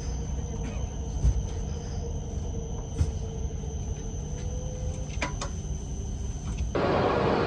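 Low, steady rumble inside a Shinkansen car running slowly into the station, with a thin high whine and a faint tone that slowly rises, broken by a few light clicks. About seven seconds in it gives way suddenly to a louder, even hiss of platform ambience beside the standing train.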